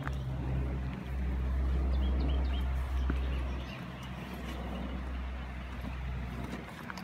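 Wind rumbling on the camera microphone, uneven and dipping briefly a couple of times, with a few faint bird chirps about two seconds in.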